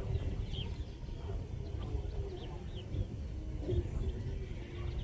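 Birds giving short, scattered chirps over a steady low rumble, with the faint murmur of a distant gathering beneath.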